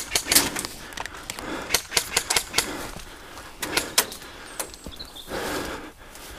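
Footsteps through tall dry grass: an irregular run of sharp crunches and swishes.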